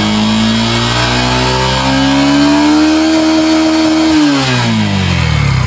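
Single-cylinder motorcycle engine held at raised revs for a stator charging-output test. The pitch climbs a little about two seconds in, then the revs drop back about four seconds in.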